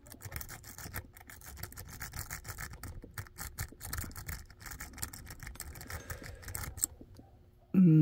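Lock-pick rake scrubbed rapidly in the keyway of a DOM Sigma Plus euro cylinder under tension, a fast scratchy rattling of the pins that stops about seven seconds in, when the cylinder has been raked into a false set. A brief voiced sound at the very end.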